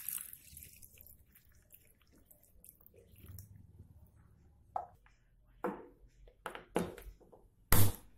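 Water poured from a plastic jug into a hot frying pan of sliced buffalo meat, hissing briefly as it hits, then faint crackling as the pan bubbles. Several sharp knocks follow in the second half, the loudest just before the end.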